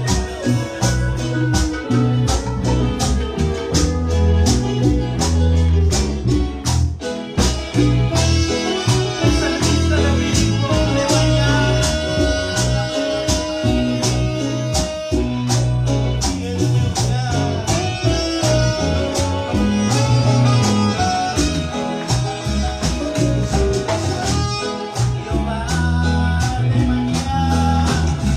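Instrumental stretch of a Spanish-language worship song: bass, guitar and percussion playing with a steady beat.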